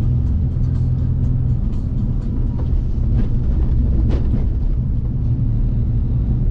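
Car interior drone while driving: a steady low rumble of engine and road noise.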